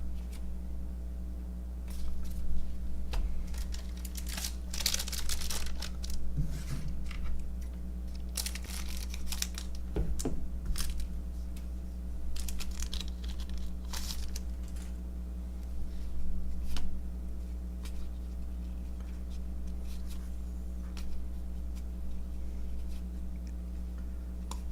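Baseball card packs being torn open and cards handled: scattered bouts of wrapper tearing, crinkling and card rustling, over a steady low hum.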